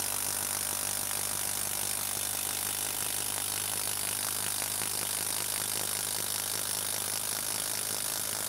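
Bosch 12-volt impact driver hammering a 6-inch Spax screw into a dense spot in a wood round, a steady rapid rattle of impacts under load.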